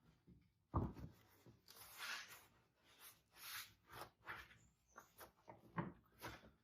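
Faint handling noises: a soft knock about a second in, then scattered light taps and rubbing, as from plastic trim and cargo-area parts being worked by hand.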